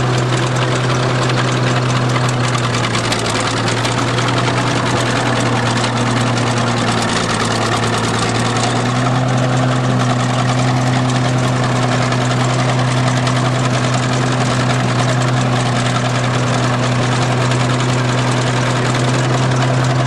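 Crawler bulldozer's engine running steadily with a loud, low hum as the machine drives over a car; the engine note sags slightly about seven seconds in, then recovers.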